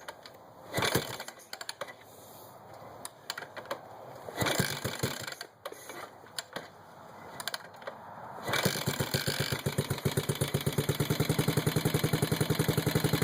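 Yamaha SR500's air-cooled single-cylinder four-stroke engine being kick-started from cold: knocks and clatter from the kickstarter for the first several seconds. About eight seconds in the engine catches and settles into a steady idle of rapid, even thumps.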